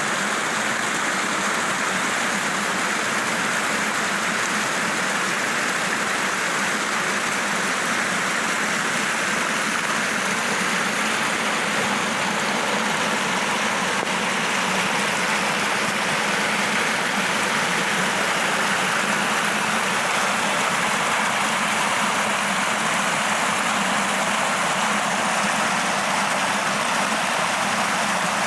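Steady rushing water noise, even and unbroken, with no distinct drops or splashes standing out.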